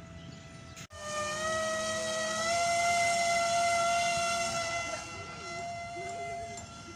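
RC model plane's electric motor and propeller whining as the plane flies, a steady high tone that rises slightly in pitch about two and a half seconds in and grows quieter after about five seconds.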